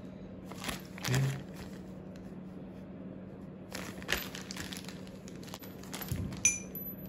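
Plastic packet crinkling in several bursts as gloved hands open it; near the end the small brass compression fittings tip out with a sharp metallic clink.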